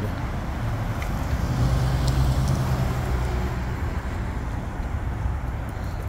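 Road traffic passing through an intersection: car engines and tyre noise as a steady rumble, with a stronger low hum from a passing vehicle around the middle.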